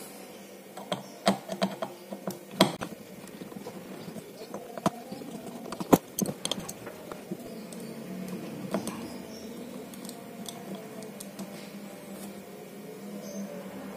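Irregular clicks and taps of small metal fishing-reel parts and tools being handled while a Jigging Master spinning reel is taken apart and a stuck part is worked loose. The clicks come thickest in the first few seconds and again around six seconds in, then thin out.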